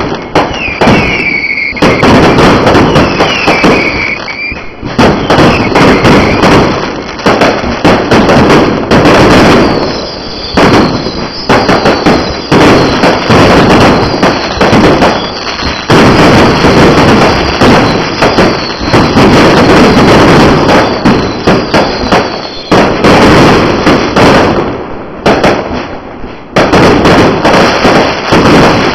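Fireworks going off in a dense, continuous barrage of loud bangs and crackle, with short falling whistles in the first few seconds and again through the middle.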